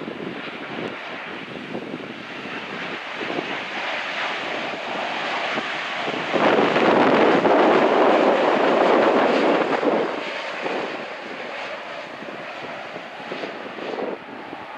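Boeing 787 Dreamliner's GEnx turbofans on final approach, a steady jet rush that swells to its loudest from about six to ten seconds in as the airliner passes, then eases off as it flares for the runway.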